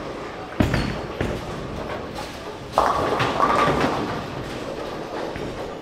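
A bowling ball thuds onto the lane just after release and rolls, then strikes the pins with a sudden crash and clatter almost three seconds in that lasts about a second, over the steady din of a bowling center.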